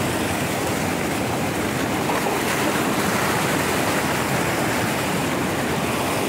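Sea waves breaking and washing over shore rocks: a steady rush of surf.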